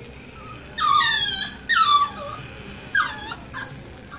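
Boxer puppy whining: three high-pitched whines, each falling in pitch, the first two longer and the third short.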